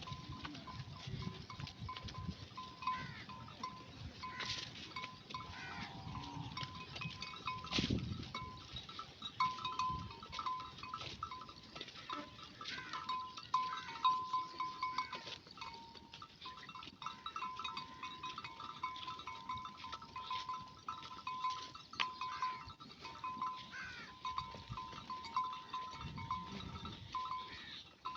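Bells on a grazing flock of dumba sheep tinkling almost without pause, with occasional sheep bleats.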